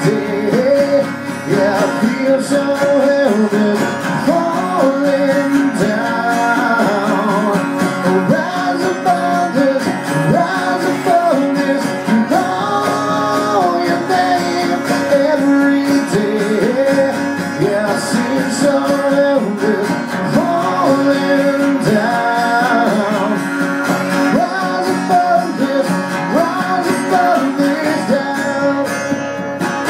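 Live acoustic guitar strumming, with a man singing a melody over it.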